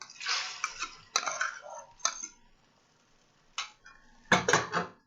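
Kitchen utensil scraping and clinking against a bowl and frying pan as the omelette ingredients go into the pan, a busy stretch for about two seconds. A single click follows, then a short, louder clatter near the end.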